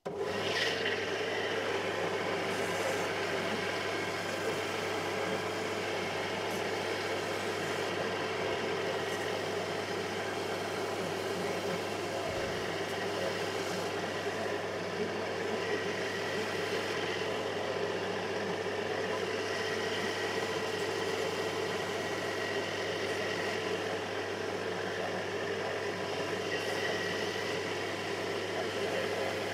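A linisher (belt sander) switches on right at the start and runs steadily with a constant motor hum, used to round off the corners of a small wooden saw insert.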